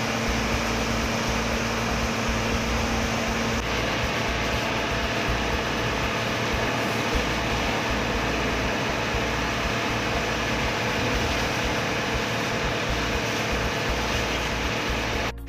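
Fire engine pumping water through hoses: a steady mechanical rushing with a low hum that drops out about three and a half seconds in.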